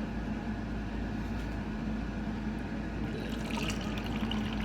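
Water being poured into a container, splashing more brightly about three seconds in, over a steady low hum.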